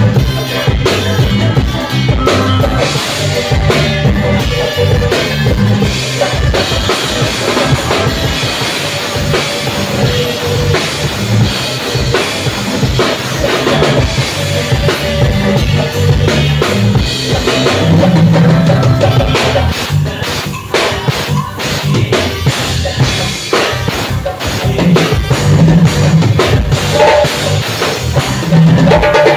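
Drum kit played live with a band, heard close up from behind the kit: bass drum, snare and cymbals driving a rock groove over the band's music, easing off briefly about two-thirds of the way through.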